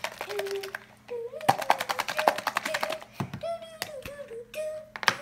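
Wet play slime and plastic tubs being handled, giving many sharp sticky clicks and squelches, while a wordless voice makes drawn-out, wavering tones.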